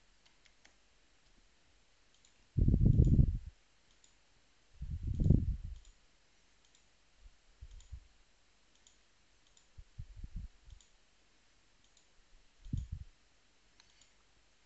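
Computer mouse clicks and keyboard keystrokes as a web form is filled in, heard as faint sharp ticks. Several louder, dull low thumps come in between, the loudest about 3 and 5 seconds in.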